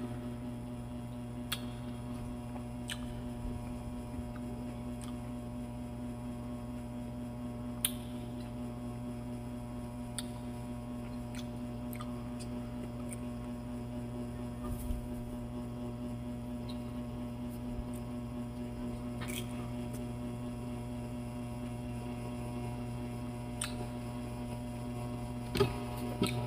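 Steady electrical hum that stays at one pitch throughout. It is broken by a few faint, scattered mouth clicks and smacks from chewing pineapple.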